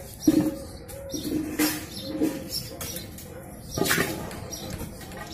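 Short knocks and clunks as a bottle of mustard oil is handled over an iron kadhai on a wood-fired mud stove, the sharpest about a third of a second in, then a brief splash about four seconds in as the oil pours into the empty pan.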